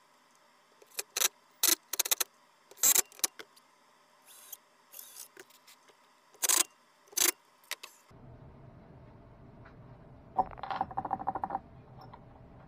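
Sharp metallic clicks and clinks of screws and a cordless drill being picked up and set down on a bench. After an abrupt change to a steady shop hum, a second of rapid jingling of screws rattling in a hand.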